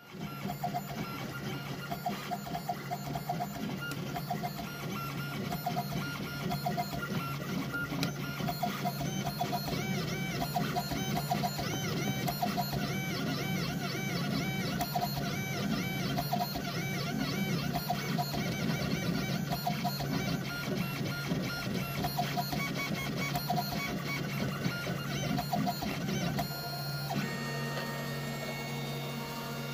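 Gravograph New Hermes IS400 Volume engraving machine at work, its diamond drag cutter tracing lettering into a pewter tray. The axis motors whine in short, repeating rising and falling runs over a steady motor hum. About three seconds before the end there is a brief clatter, and the whine settles into steadier tones.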